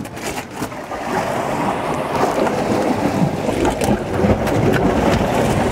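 Ocean surf washing in over the shoreline rocks, swelling from about a second in and holding steady, mixed with wind on the microphone.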